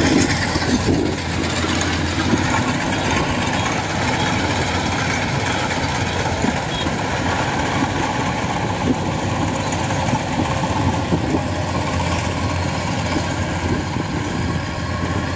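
Kubota DC-93 rice combine harvester running under load as it cuts and threshes standing rice: a steady drone of the engine and threshing machinery with a constant low hum.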